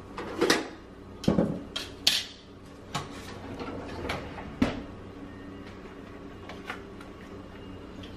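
A kitchen drawer opened and rummaged through, with about six sharp clacks and knocks in the first five seconds as a plastic egg slicer is taken out and set down on the countertop; quieter after that.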